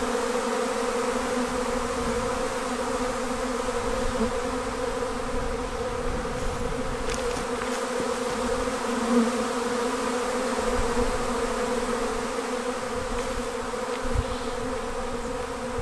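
A honey bee swarm buzzing: many bees in flight, gathering onto a branch, making a steady, unbroken drone that holds one even pitch.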